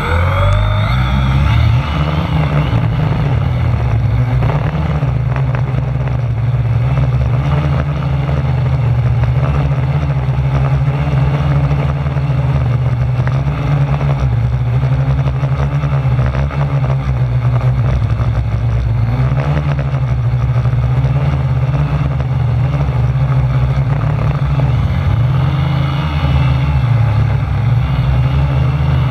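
A 450-size quadcopter's electric motors and propellers spin up with a rising whine at the start, then run steadily in flight as a loud, even buzz. A deep rumble from strong gusting wind on the on-board camera's microphone sits under the propeller buzz.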